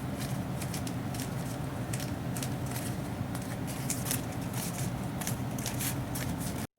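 Thin cardboard being bent and handled, giving many short, irregular crinkles and crackles over a steady low hum of room noise.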